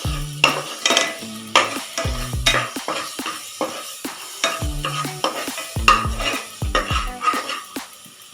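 Spice masala and ground paste sizzling as they fry in a pressure cooker, stirred with repeated scrapes and knocks of the utensil against the pan.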